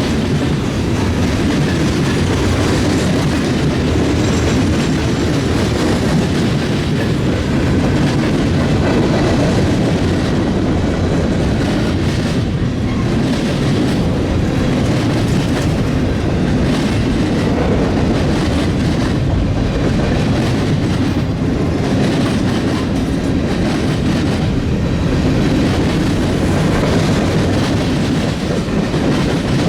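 A train's railcars rolling steadily past close by, their wheels rumbling and clicking over the rail joints.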